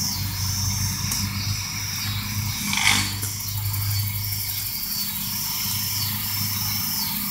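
Outdoor ambience: a steady low machine hum, with high insect trilling that comes and goes and one sharp thump about three seconds in.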